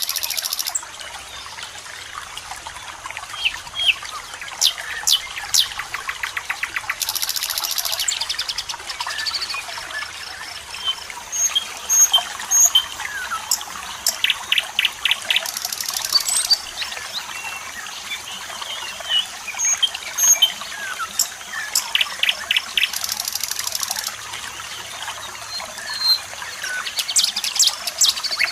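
Several birds chirping and whistling over a steady trickle of running water, with fast rattling trills every several seconds.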